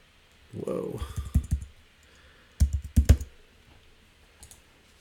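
Typing on a computer keyboard: a quick run of keystrokes about a second in and another burst of keystrokes a couple of seconds later, then a single faint click near the end.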